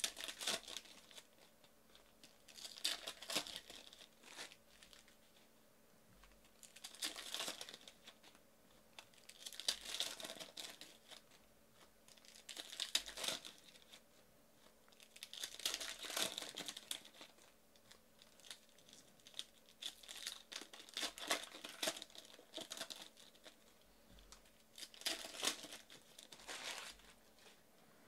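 Foil wrappers of trading-card packs being torn open and crumpled by hand, in short bouts of crinkling and tearing every two to three seconds.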